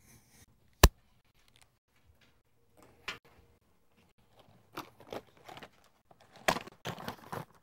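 A single sharp click about a second in, then a run of irregular short clicks and rustles from handling in a small classroom, busiest near the end.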